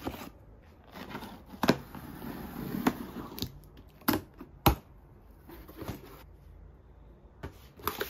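Cardboard box being handled and opened: cardboard scraping and rustling, with a few sharp knocks as the box and its flaps are moved.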